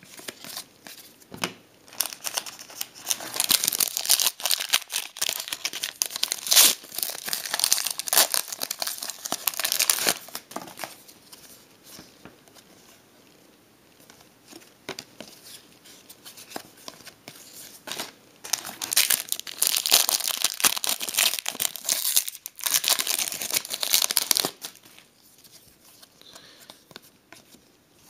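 Trading-card pack wrappers being torn open and crinkled, in two bouts of crackling with sharp snaps and quieter handling between.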